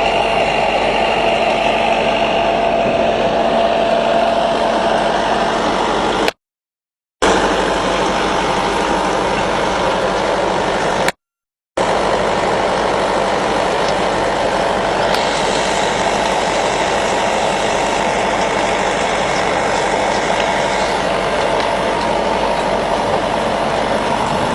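Sand screening and washing plant machinery running steadily: a continuous engine and machine noise with a steady hum. It cuts out to silence twice, briefly.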